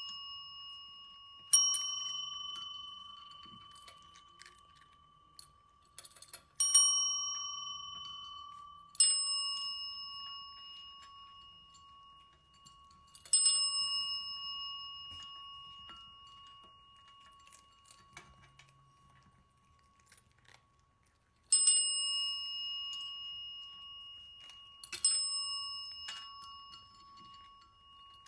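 Chrome desk bells (service call bells) struck by cats' paws, six dings spaced a few seconds apart, each ringing out and fading slowly. Faint soft clicks come between the strikes.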